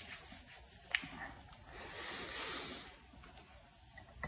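Faint rubbing and rustling of a small sachet being handled and squeezed in the fingers, with a sharp click about a second in and a soft hissy rustle around the middle.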